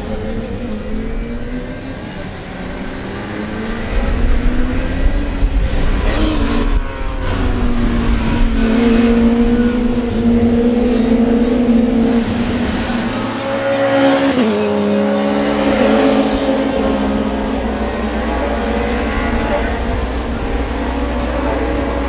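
Touring race car engines running hard, their pitch climbing and falling as the cars rev and shift. The sound gets louder about four seconds in, and about two-thirds of the way through a car passes with a sharp drop in pitch.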